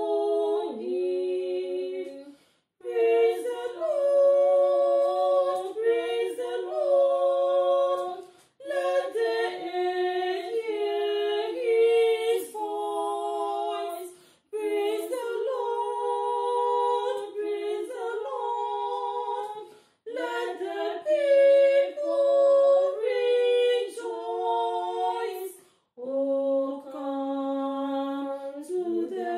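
Two women singing a hymn a cappella in harmony, in phrases of about six seconds with brief breaths between them.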